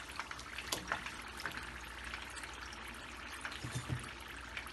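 Samosas deep-frying in hot oil, a steady sizzling hiss, with a few sharp clicks as a slotted metal spoon lifts them out.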